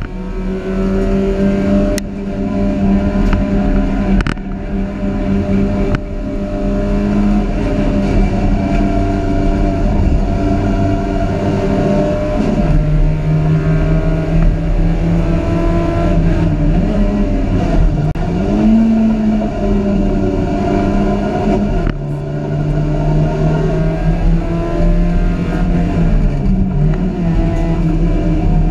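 Dacia Logan Cup race car's engine running hard under race load, heard from inside the cabin. Revs hold fairly steady, dropping about twelve seconds in, climbing back a few seconds later, and dropping and rising again in the second half.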